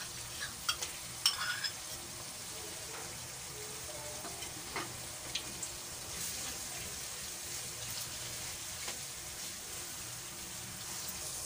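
Chopped onions with ginger-garlic paste sizzling steadily in hot oil in a nonstick kadai while being stirred with a silicone spatula. A few light taps of the spatula in the first two seconds.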